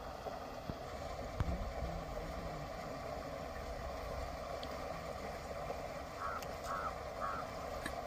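Steady background noise, with a bird giving three short calls, about half a second apart, near the end.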